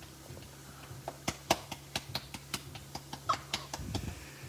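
Pearl millet dough being patted into a round by hand: a quick run of soft slaps, about five a second, starting about a second in and stopping near the end.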